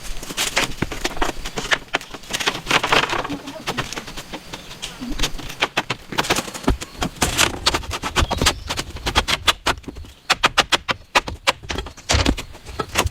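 Many quick, sharp knocks and clicks in irregular runs, like hand tools striking wood or bamboo.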